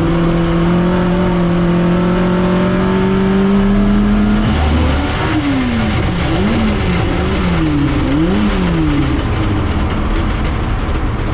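Ford Crossflow four-cylinder race engine in a TVR running at high revs and slowly climbing, then a bang about four and a half seconds in. After it the revs swing down and up several times, typical of the engine revving with no drive once the gearbox has lost all its gears.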